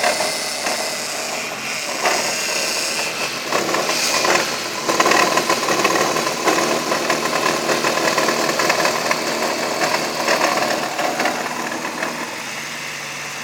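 1997 Ford Taurus idling with its automatic transmission in reverse, while an irregular grunting noise comes and goes over the steady engine hum.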